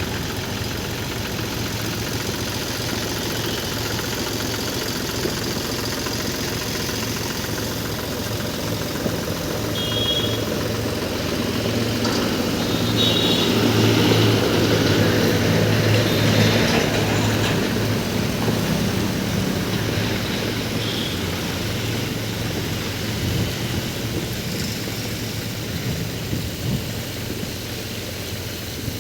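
Engine of a road-construction water tanker running steadily, getting louder for a few seconds around the middle.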